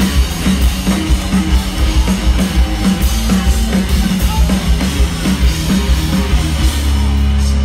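Live rock band playing loud: bass and drum kit pounding out a driving beat. About seven seconds in, the beat stops and a low note is held on.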